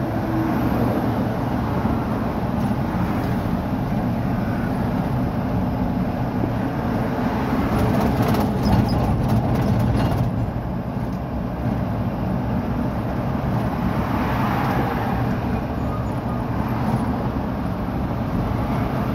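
Steady engine and road noise of a vehicle driving along a highway, heard from inside the vehicle, with a few light rattles about eight to ten seconds in.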